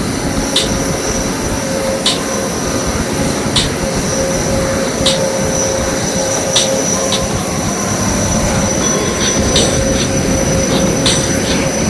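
Jet airliner engines running with a steady high whine over a continuous rush of noise. Short faint ticks recur about every second and a half.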